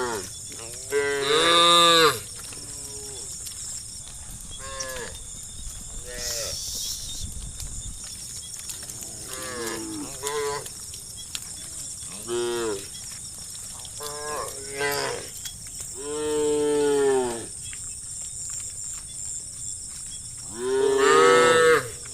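A herd of cattle mooing, a dozen or so calls from several cows at different pitches, some short and some drawn out. The loudest, longest moos come about a second in, around the middle and near the end.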